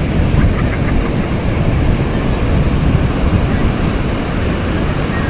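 Ocean surf breaking and washing on a sandy beach, a steady roar of water, with wind buffeting the microphone in a low rumble.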